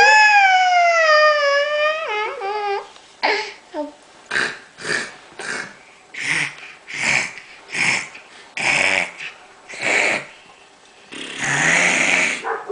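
A young child making vocal sound effects: a long high squeal that slides slowly down in pitch, then a run of about nine short breathy noises, roughly one every 0.7 s, and a longer raspy breath near the end.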